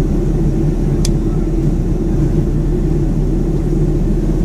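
Steady cabin noise inside a Boeing 757-200 cruising on its descent: a dense, even drone of engines and airflow, strongest in the low range. A brief click about a second in.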